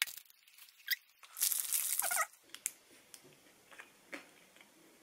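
Foil protein-bar wrapper crinkling, loudest for about a second starting around a second and a half in, with a few sharp clicks of biting and handling around it.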